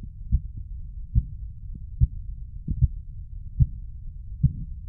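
Thyroid bruit heard through a stethoscope: a low whooshing noise with a stronger beat a little more than once a second, in time with the pulse.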